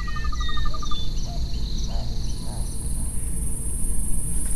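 Night chorus of insects: a steady high-pitched chirring, joined about two seconds in by a still higher steady buzz, as the first one fades. A short, fast pulsing call and a few brief whistled calls come in the first second.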